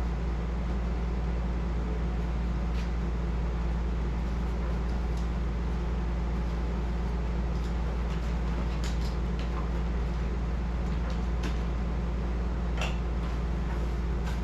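Steady low machine hum, with a few faint clicks and rattles about nine and thirteen seconds in.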